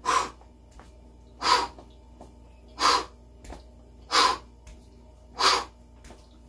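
A man's sharp, forceful exhalations, one with each push of an incline dumbbell press: five in an even rhythm, about one every second and a half.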